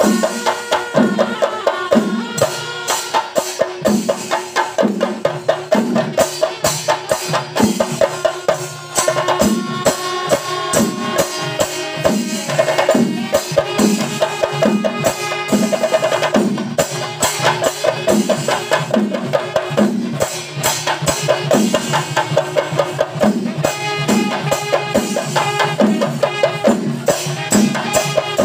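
Chenda melam: a large ensemble of Kerala chenda drums beating a steady, driving rhythm with dense sharp strokes, with ilathalam cymbals clashing. Pitched wind lines come and go over the drums, most likely from kombu horns.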